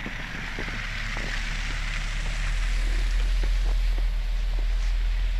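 Wind on the microphone outdoors in snow: a steady low rumble with a hiss over it, slowly getting louder, with a few faint clicks.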